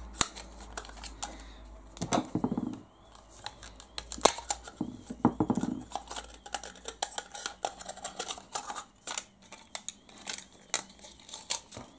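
Irregular clicks, taps and scrapes of a small plastic radio-control case and its circuit board being handled and worked apart with a screwdriver.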